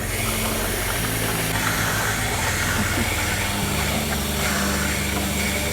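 Consul 16 kg washing machine running at the start of its first wash cycle: a steady hiss over a low hum.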